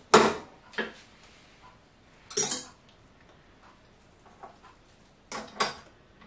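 Metal clanks and clinks of a stand mixer's stainless steel bowl being seated and a wire whisk attachment being fitted. There are a few separate knocks: one right at the start, another just before a second in, a rattling one about two and a half seconds in, and a close pair near the end.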